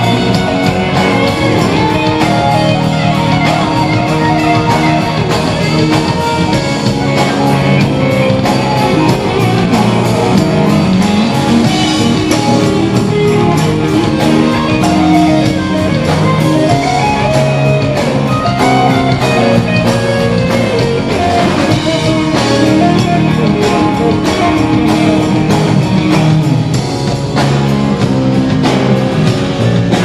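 Rock band playing live, an electric guitar taking the lead with bending melodic lines over drums.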